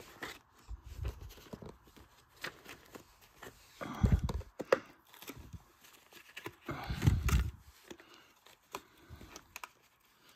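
Paper and cardboard packaging being handled: scattered light rustles and clicks, with two louder rubbing, scraping sounds about four and seven seconds in.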